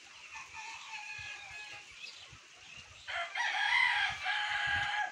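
A rooster crows once, a long call of about two seconds starting about three seconds in. Fainter bird calls come before it.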